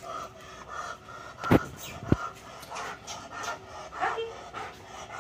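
German Shepherd panting rapidly and steadily. Two sharp knocks about a second and a half in, half a second apart.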